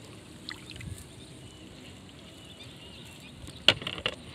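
Soft water sloshing around legs wading in shallow water, with quiet knocks from a wet cast net and its chain weights being handled on a floating plastic jerrycan; one sharp click near the end.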